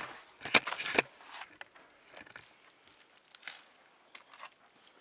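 Camera handling noise close to the microphone: rustling and scraping with a few sharp clicks, loudest between about half a second and a second in, then scattered lighter scuffs.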